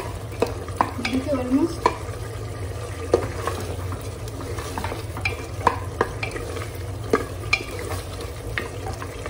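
Wooden spatula stirring and scraping mutton gravy as it is sautéed in an open aluminium pressure cooker, knocking irregularly against the pot's sides and bottom over a low sizzle of frying.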